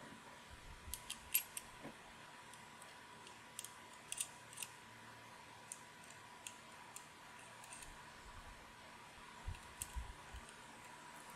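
Small metal busbar strips and hardware clicking and tapping against plastic 18650 cell holders as they are fitted by hand: scattered sharp clicks in a few short clusters, the loudest about a second and a half in.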